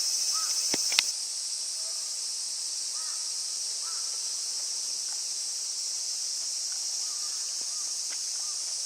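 A dense, steady, high-pitched chorus of insects shrilling, with faint short chirps now and then beneath it. A sharp click comes about a second in, after which the chorus is a little quieter.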